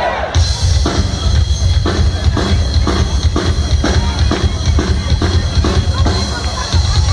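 Rock drum kit solo played live through a large outdoor PA, with bass drum and snare hits in an even beat of about two a second.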